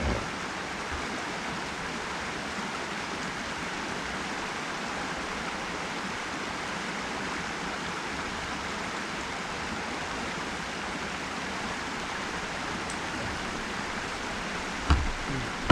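Steady rush of flowing river water, with a single thump near the end.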